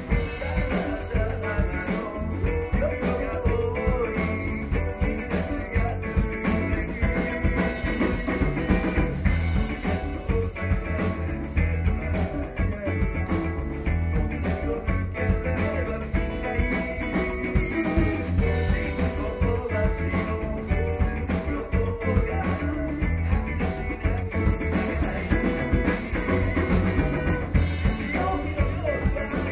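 A rock song played live, with guitar, drums and a singing voice, with a steady beat.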